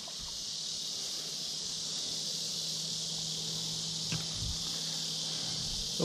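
Steady, high-pitched chorus of insects droning without a break, with one small tick about four seconds in.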